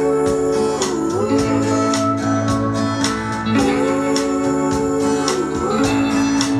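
Recorded pop-country music playing through a Phase Linear PL700 power amplifier and Magneplanar speakers: an instrumental passage of guitars, slide guitar and organ over a steady beat, the lead line sliding down and back up in pitch twice.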